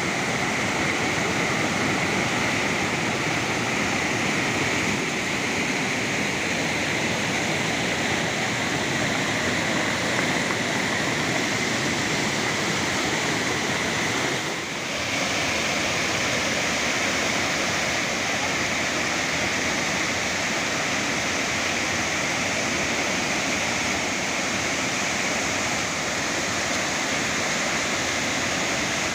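Waterfall: the steady rush of a tall fall of water crashing down, dipping briefly about halfway through.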